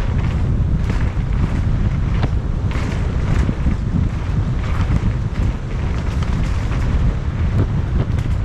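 Mountain bike descending a rocky, chunky trail: steady wind buffeting the microphone, with frequent knocks and rattles from the tyres and bike over rocks.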